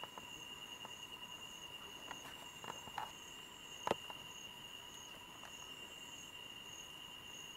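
Night insects calling steadily: one holds a continuous high trill and another pulses at a higher pitch. A few small snaps sound a little past two seconds in, and a sharp click comes about four seconds in.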